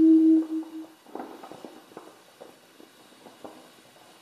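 A steady held tone ends about a second in, followed by faint, irregular crackling of paper being folded by hand.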